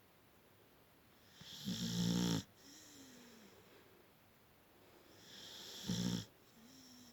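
Beagle snoring: two loud snores about four seconds apart, each building up and then cutting off sharply, each followed by a faint whistling note on the breath out.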